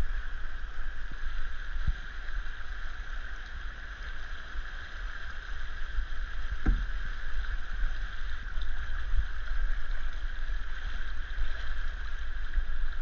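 Steady rushing of shallow river rapids around a canoe, with wind rumbling on the microphone. A dull knock sounds once about two seconds in and again near the middle.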